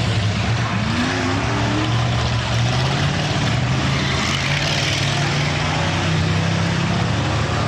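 Demolition derby cars' engines running, with a short rising rev about a second in.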